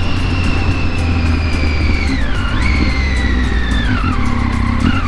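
Triumph Street Triple 675 R's three-cylinder engine heard from the rider's seat, its revs falling steadily as the bike slows. About two and a half seconds in the pitch drops sharply and jumps back up, as in a downshift, then falls again with another dip near four seconds. Under it runs a heavy low rush of wind on the microphone.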